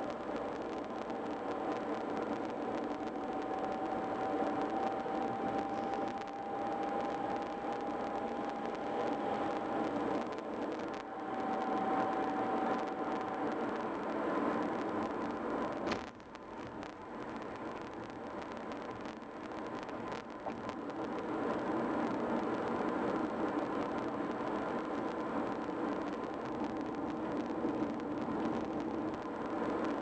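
Steady road noise of a moving car heard from inside the cabin: tyre and engine hum, with a faint steady whine through the first half. About halfway there is a sharp click, after which the noise is quieter for a few seconds before building back up.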